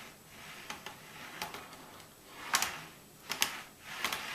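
HO-scale model tank car rolled by hand back and forth across the rail gap between a stall track and the Atlas 305 turntable bridge, its wheels clicking over the joint: a few sharp little clicks, the loudest about two and a half seconds in, with soft rolling noise between. This is a check that the rails line up so the car crosses the gap without derailing.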